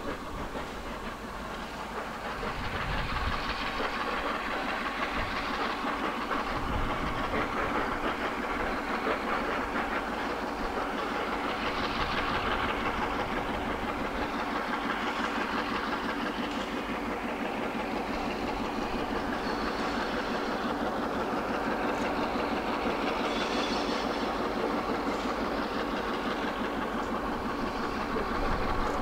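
Heritage diesel-electric locomotives heading a train slowly towards the listener, their engines droning steadily with wheels running on the rails. It grows louder a few seconds in and then holds steady.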